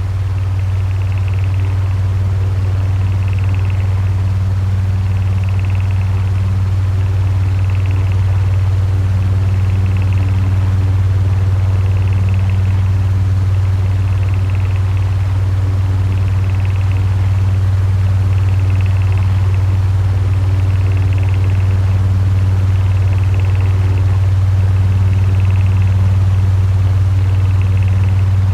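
Electric fan running steadily: a strong low motor hum under a rush of moving air, with a faint higher whir that swells and fades about every two seconds.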